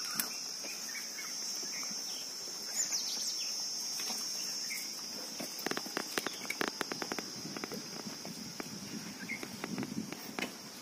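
Insects chirring in a steady, high, even drone, with a cluster of sharp clicks and taps about six to seven seconds in.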